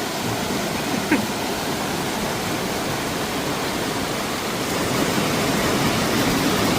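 Rushing water of a mountain river or waterfall, a steady, loud rush, a little louder from about five seconds in. A brief click about a second in.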